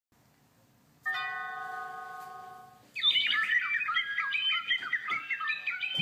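Intro jingle played back from a computer. About a second in, a held chime-like chord sounds and fades. At about three seconds a fast stream of high, warbling, bird-like chirps begins and runs on.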